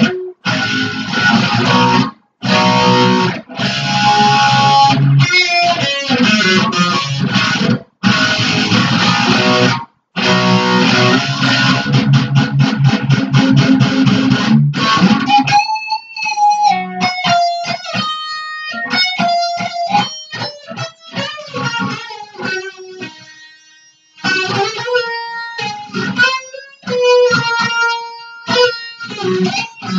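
Jackson electric guitar played loud, with thick chords and a few abrupt stops in the first half, then a single-note lead line with bent notes from about halfway.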